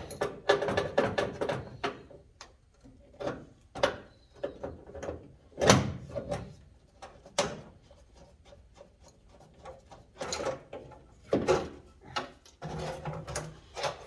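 Irregular knocks, clicks and rattles of dash parts being worked loose and handled as the air duct horns are pulled out of a 1974 Ford F100 dash, the loudest knocks about six seconds in and again around ten to eleven seconds in.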